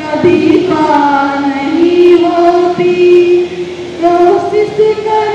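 A woman singing a Hindi inspirational song (chetna geet) into a microphone, in long held notes that slide between pitches.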